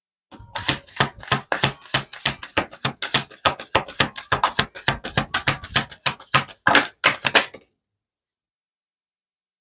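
A deck of tarot cards being shuffled by hand: a quick, uneven run of card slaps, about four a second, that stops abruptly after about seven seconds.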